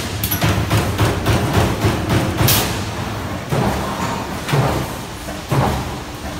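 CNC turret punch press punching sheet metal: a rapid run of sharp knocks from the punch strokes, several a second, with the machine's steady running noise underneath.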